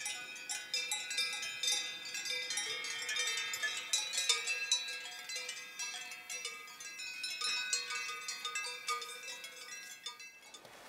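Many cowbells ringing irregularly and overlapping, as a herd of cows moves and grazes; the ringing fades near the end.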